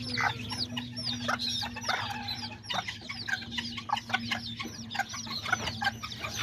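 A brood of baby chicks peeping constantly, many short high calls that slide downward, several a second, with a mother hen clucking among them.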